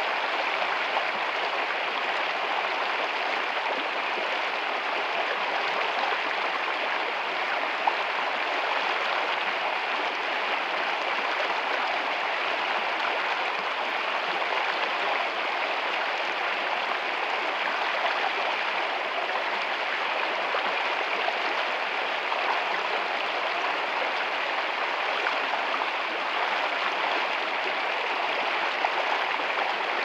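Shallow rocky stream running over stones, a steady, unbroken rush of water.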